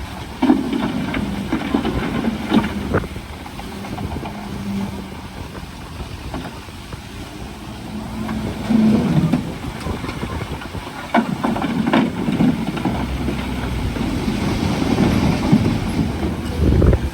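Bulldozer at work: diesel engine running under load with the clanking and knocking of its steel tracks and blade, several sharp metallic clanks standing out over the rumble.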